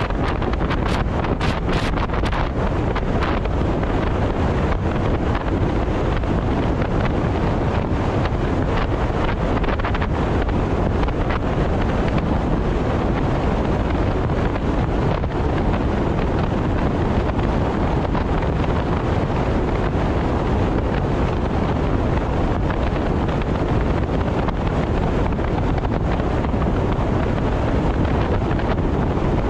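Steady rush of wind buffeting the microphone over the road and tyre noise of a car travelling at expressway speed. A few brief clicks come in the first couple of seconds.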